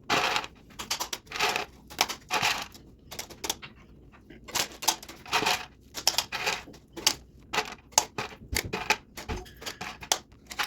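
Irregular clicks, taps and short rustles from handling insulin injection supplies, with a couple of dull thumps near the end.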